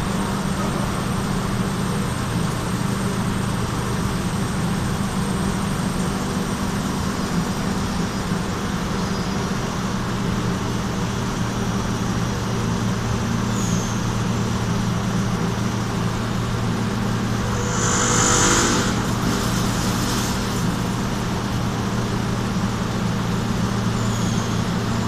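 A machine running with a steady hum over a constant hiss, recorded for an abnormal noise. A brief louder hiss comes about eighteen seconds in.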